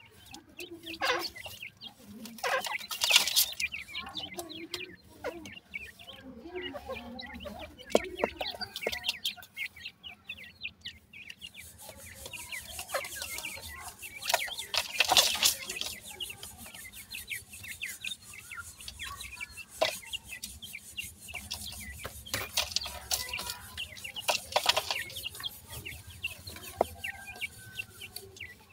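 Young grey francolins (teetar) giving many short chirping calls, with scuffling and pecking in loose dry soil. The louder flurries come about three seconds in, around the middle and near the end.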